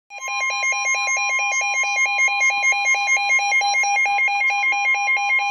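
Midland WR-120 NOAA weather radio sounding its warning alert for a severe thunderstorm warning: a fast pulsing electronic alarm, about five beeps a second, over a steady high tone.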